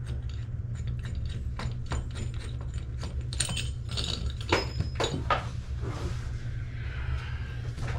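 Clinks, scrapes and knocks of metal tools and fittings being worked under a sink while loosening faucet mounting nuts, with a few sharper strikes in the middle, over a steady low hum.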